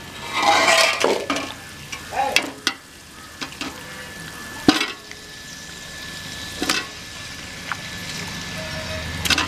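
Raw chicken pieces frying in oil and onion paste in an aluminium pot, sizzling as a steel ladle stirs and scrapes them. The ladle knocks against the pot several times, the sharpest a little before halfway.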